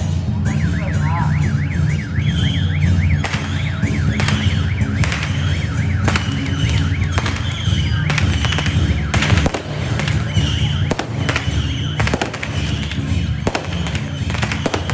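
Firecrackers popping in irregular cracks over a steady low drone. A fast-warbling, siren-like electronic tone sounds for the first few seconds, then gives way to short chirps repeating about once a second.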